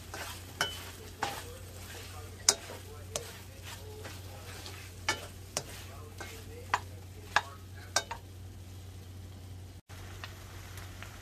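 Ground pork and shrimp paste frying in a stainless steel pan with a light sizzle, stirred with a plastic spatula that scrapes and clicks against the pan every half second to second. The clicks stop about eight seconds in.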